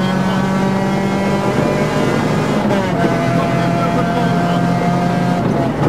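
Renault Clio Williams rally car's 2.0-litre four-cylinder engine heard from inside the cabin, running at steady revs along a straight. Its pitch drops a little about a second and a half in and falls away just before the end.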